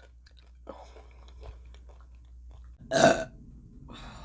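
A woman burps once, short and loud, about three seconds in, after a few faint mouth clicks.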